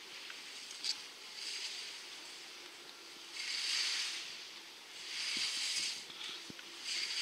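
Skis scraping and swooshing on spring snow as a skier turns through moguls, a hissing swell on each turn, about four in a row every second and a half or so.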